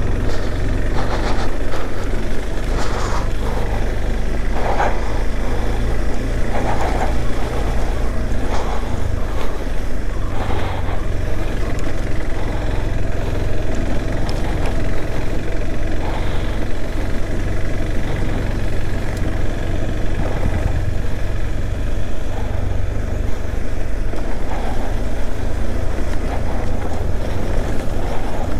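Motorcycle engine running as the bike rides along a rough dirt trail, with a steady low rumble throughout and a few short knocks and rattles in the first half.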